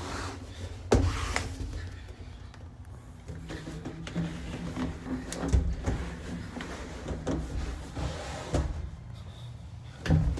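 Irregular knocks, thumps and rubbing of a person crawling through moulded plastic play-land tubes, body and camera bumping the plastic walls. The strongest knocks come about a second in and near the end.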